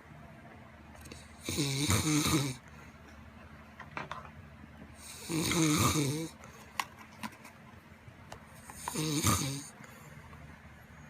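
An overweight person snoring heavily in sleep: three snores, roughly one every three and a half seconds, each lasting about a second.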